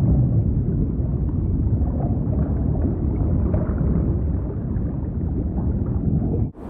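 Low, steady underwater rumble with faint bubbling, a sound effect; it cuts off abruptly near the end.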